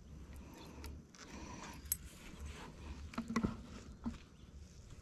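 Handling noise from fingers working fishing line and a lure right at the camera: scattered small clicks and rustles, with a cluster of louder knocks about three seconds in, over a faint low rumble.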